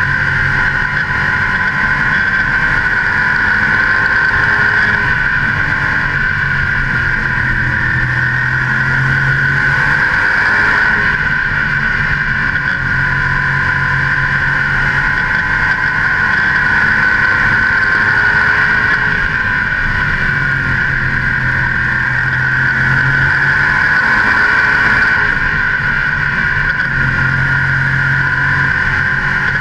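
V8 engine of a modified stock car running hard at racing speed, heard from a hood-mounted camera beside its open air cleaner, with wind noise. Engine pitch and level swell and ease every few seconds as the driver throttles down the straights and lifts through the turns.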